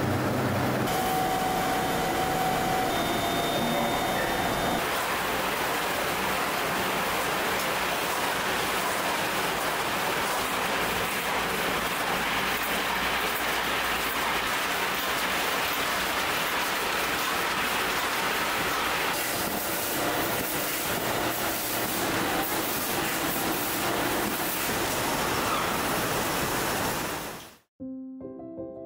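Steady, dense din of ice cream production-line machinery: conveyors and filling machines running, a hiss-like clatter with a few faint steady tones in the first few seconds. It cuts off suddenly near the end, where soft piano music begins.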